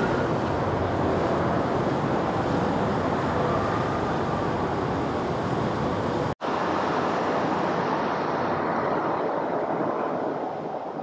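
Jet airliner engine noise, a steady rushing sound with a deep rumble. It cuts out for an instant about six seconds in and comes back thinner, without the rumble, as a departing jet climbs away, fading near the end.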